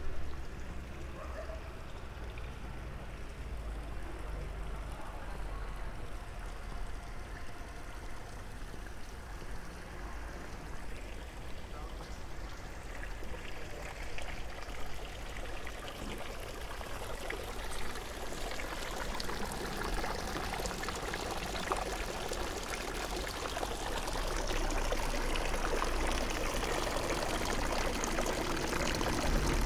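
Running water, a steady rushing that grows louder through the second half as it is approached, over a low rumble.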